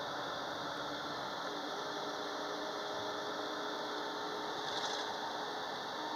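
Steady road and engine noise heard from inside a moving vehicle, a constant hum and hiss with faint tones that shift slightly, and a brief rattle about five seconds in.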